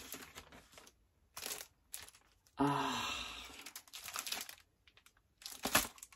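Parcel packaging being cut open and unwrapped by hand: short crinkling and tearing rustles with gaps between them, and one longer, louder sound about two and a half seconds in that fades away.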